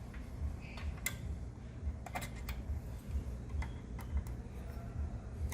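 Scattered light metallic clicks and taps, roughly one a second, as the cutter is taken out of a SEC-E9 key cutting machine with its wrench and a tracer is fitted in its place, over a low steady hum.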